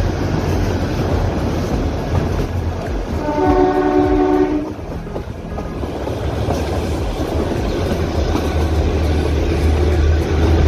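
Kalka–Shimla narrow-gauge toy train running, a steady rumble and clatter of the coaches on the track heard from an open carriage doorway. A few seconds in, the locomotive's horn sounds once for about a second and a half.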